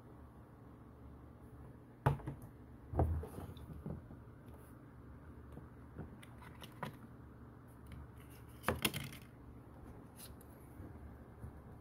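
Hands handling iPhone packaging: the coiled charging cable, a paper insert and the cardboard box. Scattered light taps, clicks and paper rustles sound over a faint steady low hum, with a short cluster of them about nine seconds in.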